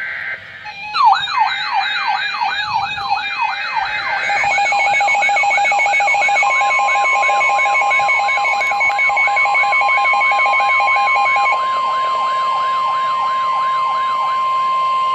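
Emergency alert signals: a short burst of SAME data tones, then layered electronic sirens, with a fast yelp sweeping up and down about three times a second under warbling and stepped high-low tones. About six seconds in, the steady NOAA Weather Radio warning alarm tone joins and holds to the end. This is the alert that comes before a severe thunderstorm warning.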